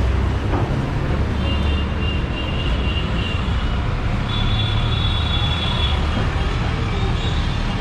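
Street traffic noise: a steady low rumble of vehicle engines, with short high-pitched tones sounding on and off several times.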